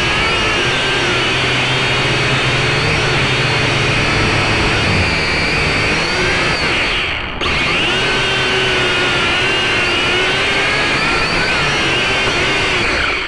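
Small camera drone's electric motors and propellers whining loudly, heard close up through the drone's own camera microphone. The pitch wavers up and down as the throttle changes and briefly dips about seven seconds in. The sound cuts out at the very end as the drone sets down on gravel.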